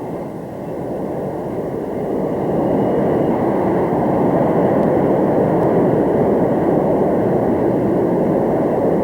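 Aircraft engine noise: a steady rushing sound that builds over the first few seconds and then holds, heard on a muffled old film soundtrack.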